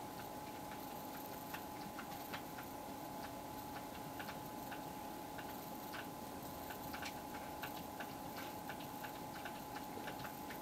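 Faint, irregular tiny clicks and crackles from a saltine cracker soaking up hot soup and starting to crack, over a steady faint hum.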